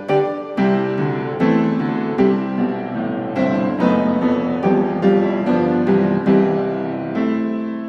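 Background piano music: struck notes and chords that fade after each strike, changing about once a second.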